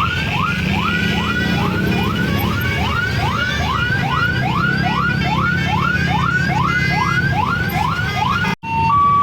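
Siren-style whoop from a bus's Basuri telolet horn, a rising sweep repeated about two and a half times a second over the rumble of engines. After a sudden break near the end it changes to steady held notes alternating between two pitches, the telolet tune.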